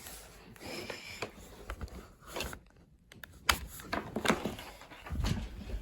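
Scattered light clicks and taps with faint rustling, uneven in timing; the sharpest click comes about three and a half seconds in.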